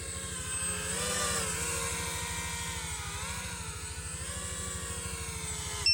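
FPV quadcopter's brushless motors and propellers whining in flight, the pitch rising and falling with the throttle, over a fast low flutter. The whine is loudest and highest about a second in and dips briefly around three seconds in.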